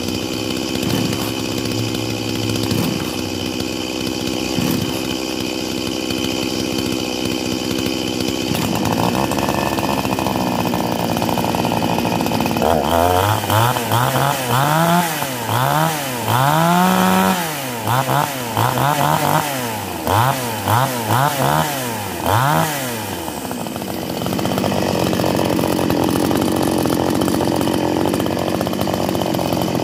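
Total 18-inch gasoline chainsaw's two-stroke engine idling, picking up speed about nine seconds in. It is then revved up and down repeatedly in quick blips for about ten seconds before settling back to a steady run.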